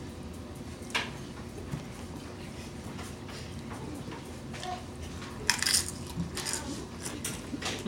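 Eating nachos from a bowl: a single tap of a utensil or chip on the bowl about a second in, then crisp crunching of tortilla chips from about five and a half seconds, with small clicks and chewing after it.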